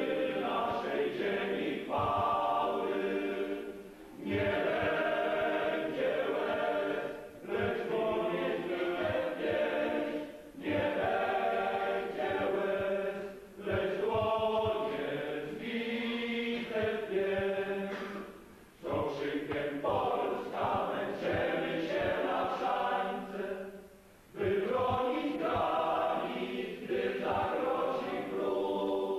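A group of voices singing a hymn together in church, in sung phrases a few seconds long with short breaks for breath between them.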